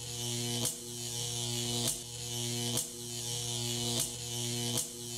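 A small electric motor buzzing, with short dips in the buzz about once a second, like a device pulsing.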